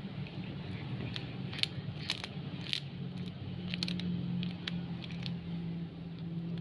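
Kitten gnawing a hard catfish head, its teeth making irregular sharp crunches, most of them between about one and five seconds in. A steady low hum runs underneath.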